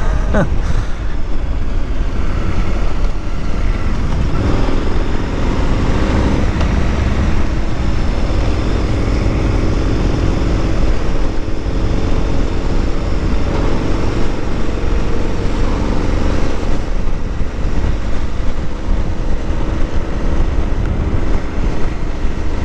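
Wind rushing over the microphone of a moving motorcycle, with the bike's engine running steadily underneath.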